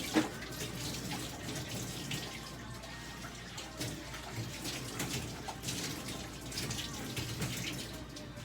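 Water running and splashing unevenly.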